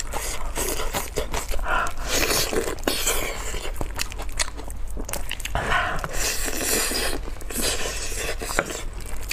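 Close-miked mouth sounds of eating sticky braised pig's trotter: chewing and lip-smacking, with wet tearing as the meat is pulled apart, broken by many short sharp clicks.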